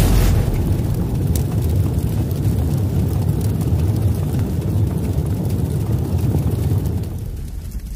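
Deep rushing rumble of an intro sound effect, loudest at the very start and then a steady low roar that fades away near the end.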